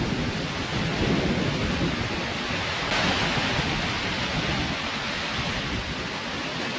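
Waterfall rushing as a steady, dense wash of water noise with a heavy low rumble; it turns hissier from about three seconds in.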